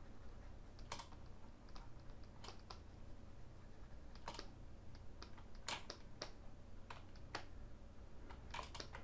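Faint, irregular clicks of a computer keyboard and mouse being worked, about fifteen over several seconds, over a low steady hum.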